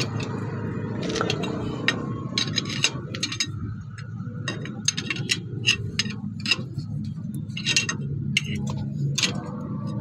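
Steel rod knocking against a truck wheel hub's check nut: about a dozen sharp, irregular metallic clinks over a low background hum.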